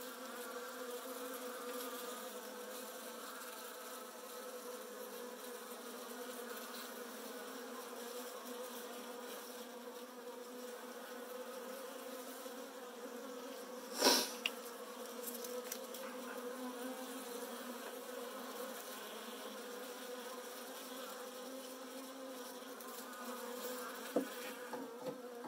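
A mass of Saskatraz honey bees buzzing in a steady, even hum, with a single sharp click about halfway through.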